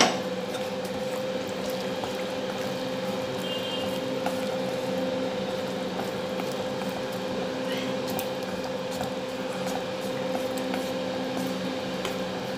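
Chicken and cashew-nut curry gravy simmering in a pan, with scattered small pops over a steady hum.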